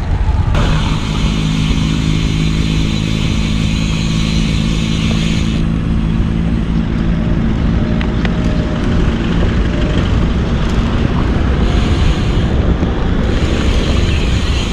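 Wind and road rush on a bicycle-mounted action camera's microphone while riding a road bike in traffic. A motor vehicle's engine hums steadily for about the first nine seconds.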